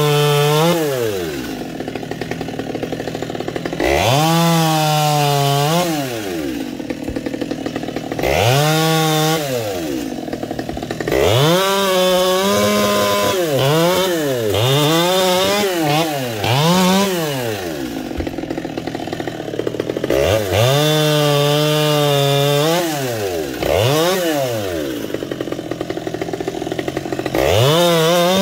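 Chainsaw revving again and again: the engine climbs from idle to full speed, holds there for a second or two, then drops back to idle, about every four to five seconds, with several quick revs in a row near the middle.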